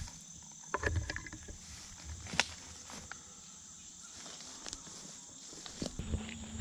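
Footsteps through dry fallen leaves and twigs: scattered light crunches and clicks, the sharpest about two and a half seconds in.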